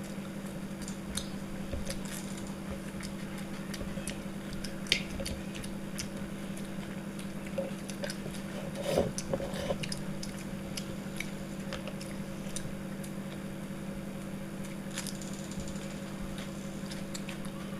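People eating chicken biryani by hand, with chewing and biting and scattered small clicks, over a steady low hum.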